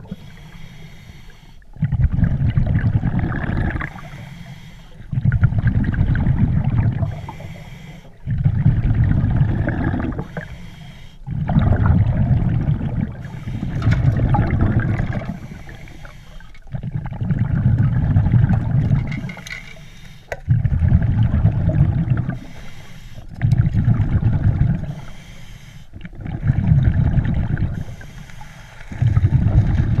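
Scuba diver breathing underwater through a regulator: each exhalation sends a loud, low rumble of bubbles lasting a second or two, about every three seconds, with quieter gaps for each inhalation.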